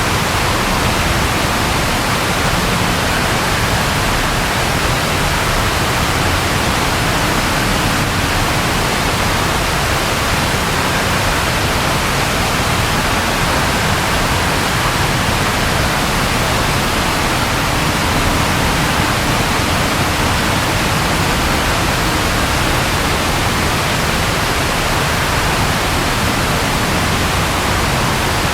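Steady, heavy rainfall: an even, unbroken hiss of rain with no distinct thunder clap.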